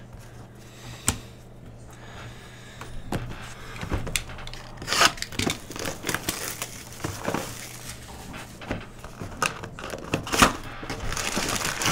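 Plastic shrink wrap being torn and crinkled off a sealed trading-card hobby box, mixed with scattered clicks and taps as the cardboard box is handled.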